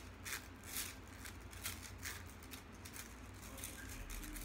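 Plastic rainbow Slinky spilling back and forth between two hands, its coils clacking together in a series of light, irregular clacks that are most frequent in the first two seconds.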